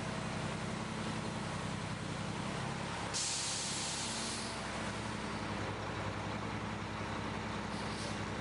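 Automatic truck wash spray arch running: water hissing from its rows of nozzles over the steady hum of the wash pump. About three seconds in, a sudden sharp hiss lasts a little over a second.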